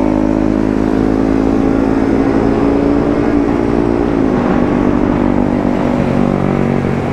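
Bajaj Pulsar RS200 motorcycle engine running steadily at highway cruising speed under wind and road rush, heard from the rider's seat. The engine note dips about four seconds in.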